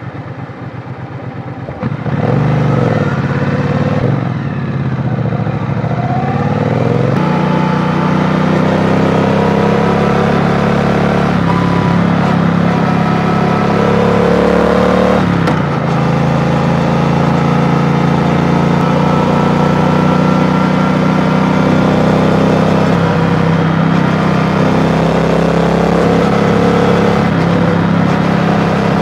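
Triumph Bonneville T120's 1200 cc parallel-twin engine under the rider: running softly at first, then about two seconds in the throttle opens and the pitch rises through the gears. Near the middle it rises again and drops with a gear change, then holds a steady cruising note.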